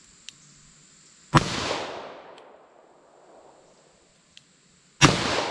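.44 Special revolver firing 255-grain hard-cast rounds: two shots, about 1.3 and 5 seconds in, each followed by a long echo dying away over a second or more.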